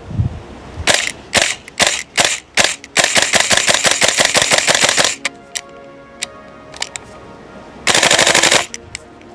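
Gas blowback airsoft rifle firing: a few single shots at about two to three a second, then a rapid full-auto burst of about two seconds, and after a pause a second short burst near the end.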